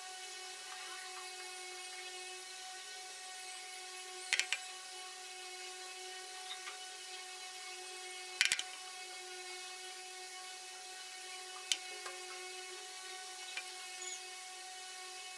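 A faint steady hum of several held tones, broken by a few sharp taps of a cardboard stencil and pencil against a wall: a double tap about four seconds in, a louder one about eight seconds in, and a lighter one near twelve seconds.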